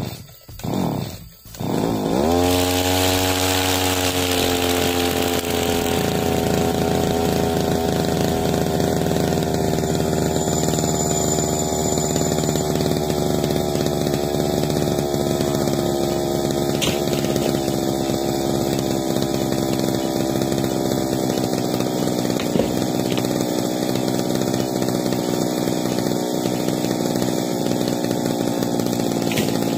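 Backpack brush cutter's small petrol engine starting up about two seconds in, climbing briefly in pitch, then settling to a steady idle.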